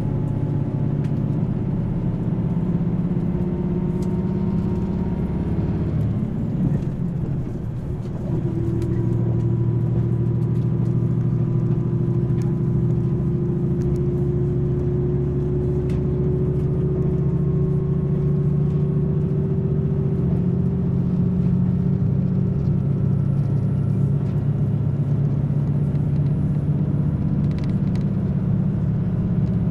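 KiHa 281 series diesel limited express heard from inside the carriage as it gathers speed: a steady diesel engine drone over rail running noise. The engine note dips briefly about seven seconds in, then climbs slowly in pitch.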